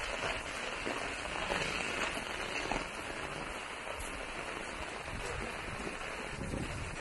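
Heavy rain falling steadily, a dense hiss of drops hitting the ground and surfaces.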